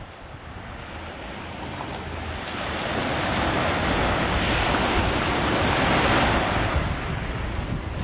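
Small sea waves breaking on a pebble beach and washing up the shore. The wash swells to its loudest a few seconds in, then eases off.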